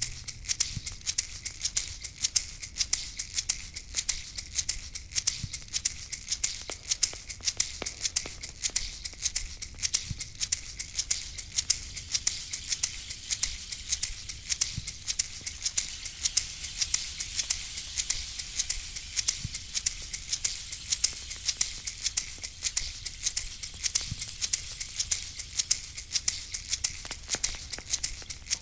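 Shamanic rattle shaken steadily in a fast, even rhythm, several crisp, dry shakes a second.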